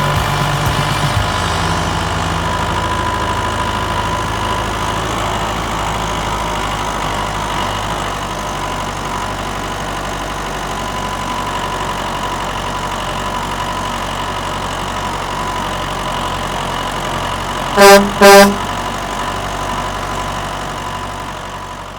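Backhoe engine running steadily while it digs. Near the end come two short, loud horn toots.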